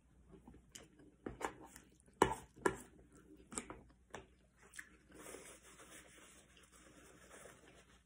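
Quiet eating sounds: a fork clicking and scraping against a plate and mouth sounds of chewing, heard as scattered small taps through the first half. Then a soft steady rustle as a paper napkin is wiped across the mouth.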